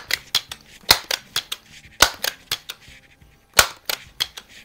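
Crosman 1400 multi-pump .22 air rifle being pumped: a sharp clack from the forearm pump lever about once a second, with lighter clicks between strokes.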